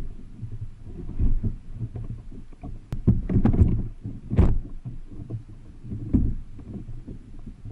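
Thumps and knocks on a plastic pedal kayak's hull as a person climbs aboard from a dock and settles into the seat, with a few sharp clicks and the loudest knock about four and a half seconds in.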